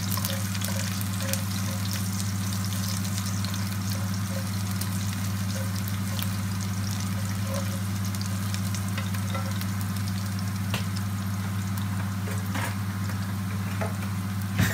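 Chopped garlic frying in oil in a terracotta cazuela, sizzling with many small crackles as a slotted spatula stirs and scrapes it through the pan. A steady low hum runs underneath.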